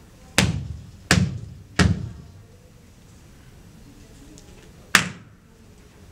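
Four sharp percussive hits, each followed by a short echo: three in quick succession about a second in, then a single one near the end.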